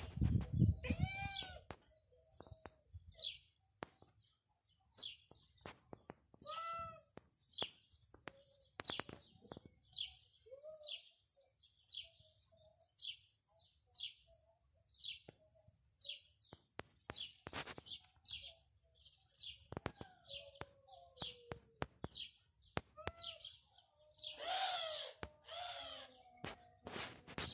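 Small birds chirping in short, high, repeated calls, about one or two a second, with a few lower, drawn-out calls and scattered light knocks mixed in.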